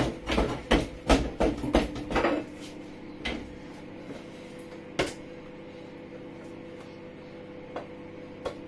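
A wooden spoon beating a thick mixture in a metal saucepan, knocking against the pan about three times a second for the first two seconds. After that come a few single knocks as the pan is tipped and scraped, over a steady hum.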